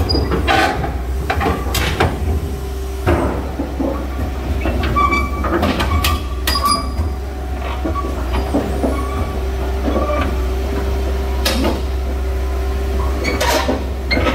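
Caterpillar 320 GC crawler excavator climbing onto a trailer: its diesel engine running steadily under irregular sharp clanks and short squeals of the steel track links against the steel ramp and deck.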